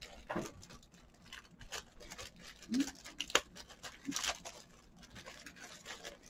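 Clear plastic zip bags crinkling and rustling as they are handled and moved, with irregular small crackles and taps, a few louder ones in the middle.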